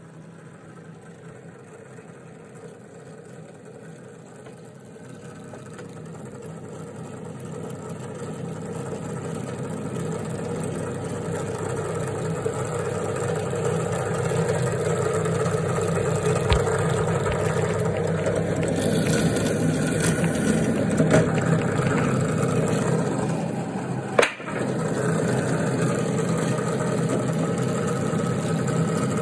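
Bench drill press motor running steadily, growing louder over the first half. A little after halfway comes a rougher, hissier stretch as the bit bores into a wooden block, and a sharp knock sounds about five seconds before the end.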